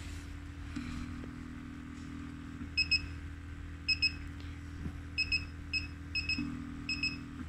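Vacuum suction therapy machine running with a steady low hum from its pump, whose note changes for a couple of seconds twice. Over it come several short, high electronic double beeps as the suction-power knob is turned.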